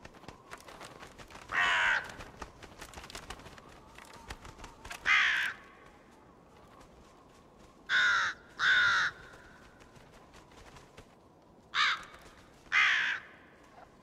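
Crows cawing: six loud caws a few seconds apart, the third and fourth close together, as are the last two.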